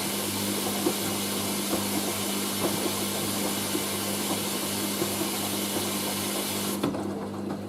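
Hoover AAA160 Whisper 1600 washing machine filling with water for its first rinse: a steady rush of water coming in, which cuts off suddenly near the end as the fill stops. A low steady hum and a few light knocks carry on underneath.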